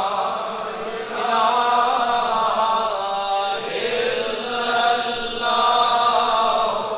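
Zikr: men's voices chanting a repeated devotional phrase in long drawn-out lines, swelling with each new phrase.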